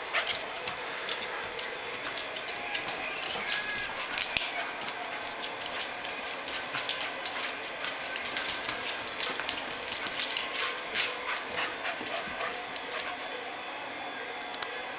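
A small dog playing on a hardwood floor: a busy, irregular patter of claw clicks and scuffles as it spins in circles, with dog sounds mixed in. The clicks thin out near the end.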